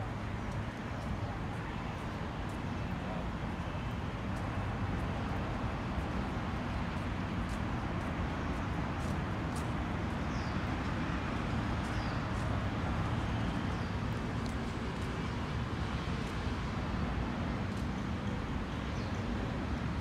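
Steady rumble of road traffic, with a few faint, short high bird chirps about halfway through.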